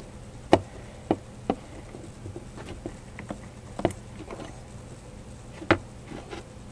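A stirring utensil working thick, sticky glue-and-shaving-cream slime in a bowl: irregular sharp taps and small clicks, a few of them louder, as the slime starts to come together.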